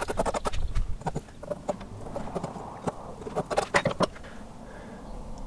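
Hand file rasping across the edge of a small piece clamped in a bench vise, a quick run of strokes in the first half second, followed by scattered clicks and knocks as the piece is handled in the vise.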